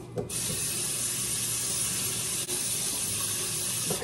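Kitchen sink tap running, with water splashing as sticky filling is rinsed off hands. It turns on about a third of a second in and runs steadily.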